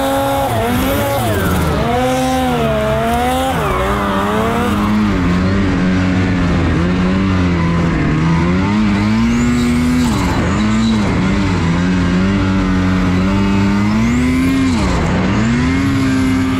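Turbocharged Lynx snowmobile engine revving hard in deep powder. Its pitch rises and falls repeatedly as the throttle is worked through turns, and it dips sharply twice in the second half.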